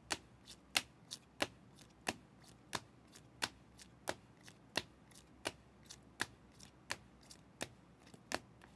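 Rigid plastic card holders clicking against each other as trading cards are flipped through one at a time: sharp clicks about one and a half times a second, with fainter ticks between, stopping shortly before the end.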